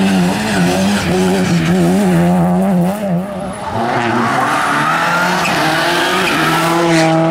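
Rally cars at speed. First a BMW E36 3 Series engine revving hard, its pitch surging up and down quickly. Then, about three and a half seconds in, a Subaru Impreza's turbocharged flat-four comes in and climbs in revs as the car approaches.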